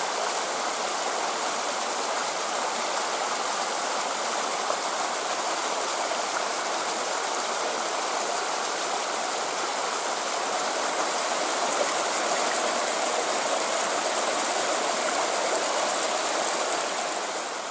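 Small mountain stream rushing over stones: a steady rush of water, a little louder in the second half and falling off near the end.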